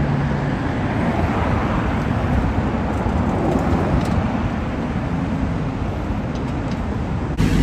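Steady road traffic noise on a busy city street: cars driving past close by, with engine and tyre noise blending into one hiss. The sound changes abruptly just before the end.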